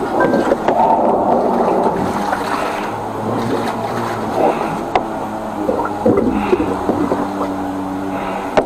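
Water gushing and gurgling through a drain during high-pressure sewer jetting, over the steady hum of the jetter's 13-horsepower engine.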